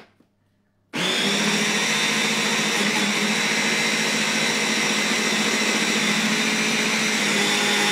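Small electric food processor, a mini chopper run by a hand-held motor unit, switching on about a second in and running steadily on high. It is blending quinoa into a sticky, bread-dough-like paste.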